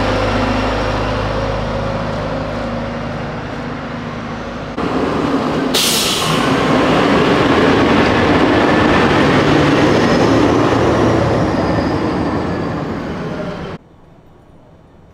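Fire engine's diesel engine idling with a steady low drone. Suddenly a louder, even rumble of heavy vehicle noise takes over, with one short sharp hiss like an air brake about two seconds in. Near the end it drops suddenly to a quiet background hum.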